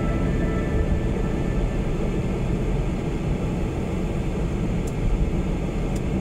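Steady road noise of a car driving at highway speed: low tyre rumble and engine hum heard from inside the cabin.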